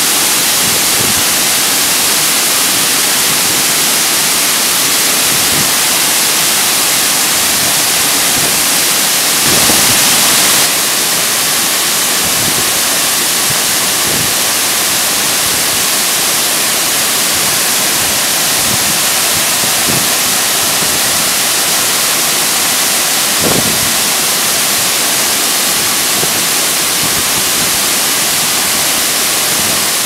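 Large waterfall crashing onto rocks at close range: a loud, steady rush of falling water, briefly a little louder about ten seconds in.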